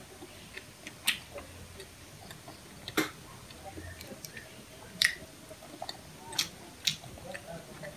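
Close-miked eating of grilled shrimp and cuttlefish: quiet chewing broken by five sharp mouth clicks and smacks, spaced a second or two apart, with a few fainter ticks between.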